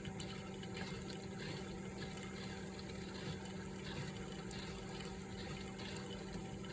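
Hamilton Beach FlexBrew Trio coffee maker brewing: water running and trickling steadily over a constant low hum.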